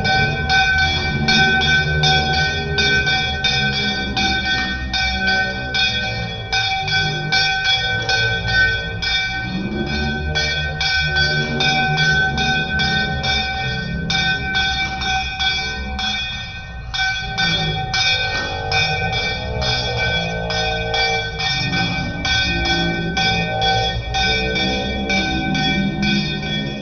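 A puja bell rung rapidly and without a break during aarti, about three strokes a second, its ringing tones held steady throughout.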